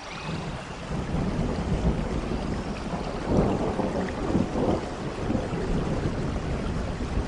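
Steady rain with a low rumble of thunder that builds within the first second and swells in uneven surges around the middle.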